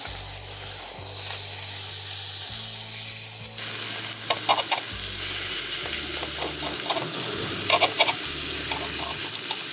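Steak sizzling steadily on a hot thick iron griddle plate (Yokozawa Teppan). A knife and fork click and scrape against the iron in short clusters as the steak is cut, about four seconds in and again near eight seconds.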